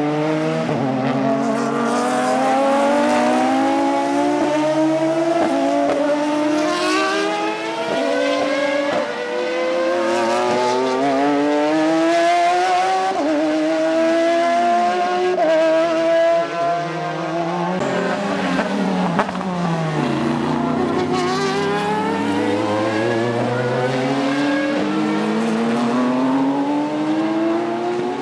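Super GT race cars accelerating one after another out of a slow hairpin. Their engines rev up through the gears, the note dropping back at each upshift, and several cars overlap. About two thirds of the way through, one engine note falls as a car slows for the corner, then climbs again as it pulls away.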